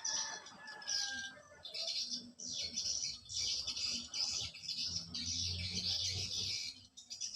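Outdoor chorus of high-pitched, rapid chirping in short repeated spells, with a few thin whistled glides near the start. A low hum comes in from about four and a half to six seconds.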